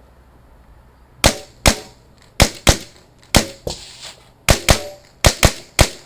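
Rapid fire from a .22 rimfire mini rifle: about eleven sharp, cracking shots, mostly in quick pairs, as the shooter engages targets in a timed course of fire.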